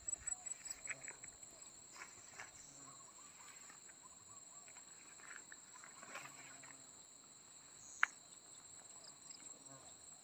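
Insects trilling in a steady high-pitched chorus, pulsing about six times a second for the first second or so and then holding steady. One sharp click comes about eight seconds in.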